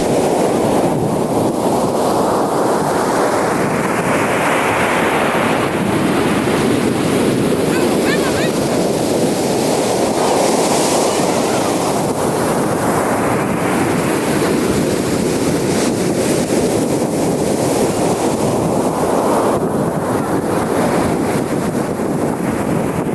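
Ocean surf washing onto a beach, a steady rush that swells twice as waves come in, with wind buffeting the microphone.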